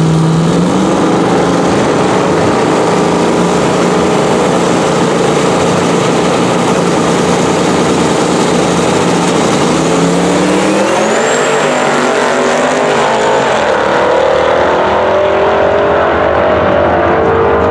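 Two drag cars, a twin-turbo 2015 Mustang GT V8 and an old square-body pickup, running loud at the starting line, then launching about ten seconds in, their engine pitch climbing as they accelerate away down the strip.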